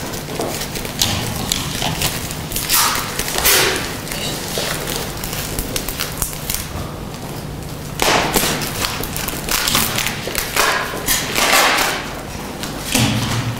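A purple plastic bag wrapped with tape around cotton wool rustling and crinkling as hands pull and tear it open, with irregular dull knocks from handling.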